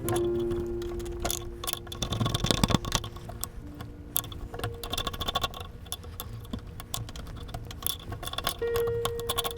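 Background music with held notes over irregular metallic clicks, taps and scrapes of hand tools working at an old axe head to free it from its handle. The clicks are thickest about two to three seconds in.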